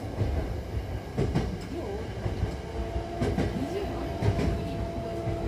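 Hankyu Takarazuka Line train running between stations, heard inside the car: a low rumble with sharp clicks and knocks from the wheels and running gear. About halfway through, a steady hum of several tones comes in and holds.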